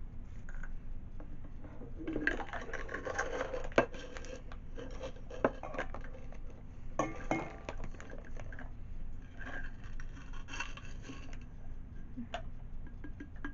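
A measuring cup scraping and clinking inside a container as sugar is scooped out, with scattered clicks and knocks of kitchenware.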